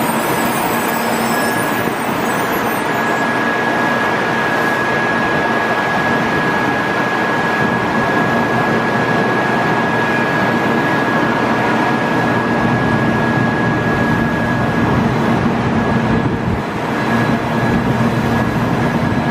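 A 700 series Shinkansen train passing at close range: a steady rumble of wheels and running gear with a steady high whine and a low hum over it, and a brief dip near the end.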